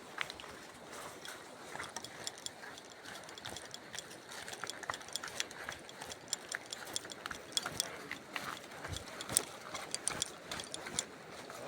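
Footsteps crunching on a forest trail: irregular sharp crackles and snaps of leaf litter and twigs underfoot, growing busier after a few seconds.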